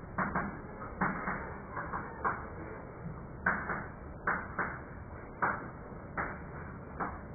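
Chalk writing on a blackboard: irregular short taps and strokes of the chalk against the slate, about two a second, with a brief pause in the middle.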